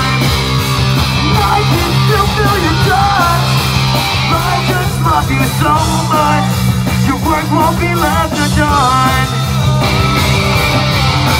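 Live rock band playing loud in a small club: guitars, bass and drums with a singer's voice over them.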